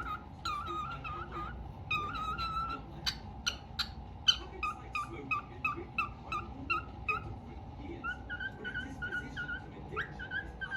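Albino cockatiel whistling a song of short, repeated whistled notes. There are a few sharp chirps partway through, then a quicker run of notes, and the phrase moves a little higher near the end. A faint steady hum sits underneath.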